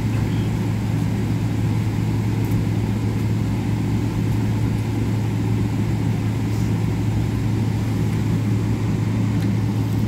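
Steady low hum inside a jet airliner's cabin on the taxiway, the engines and cabin air running, with no change in pitch or level.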